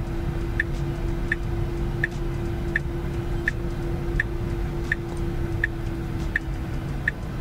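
A Tesla Model Y ticks steadily, about three short ticks every two seconds, while it reverses itself into a parking spot on Autopark. Under the ticks are a low rumble and a steady hum that stops near the end.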